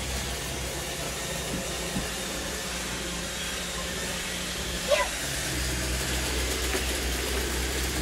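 Robot vacuum cleaners running: a steady whir and hiss over a low hum, the hum growing stronger after about five seconds. A brief voice sound is heard about five seconds in.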